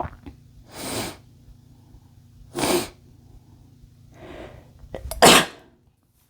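A man sneezing three times, the last sneeze the loudest.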